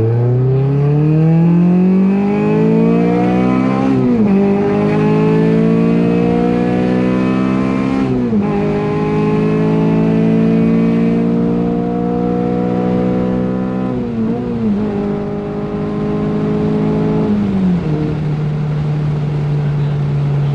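Honda Civic's built 2.1-litre K20 four-cylinder with an Invidia N1 exhaust, heard from inside the cabin, accelerating through the gears. The revs climb and drop at upshifts about 4 and 8 seconds in, then climb more slowly and drop again around 14 seconds. They hold steady, then fall to a steady lower drone near the end.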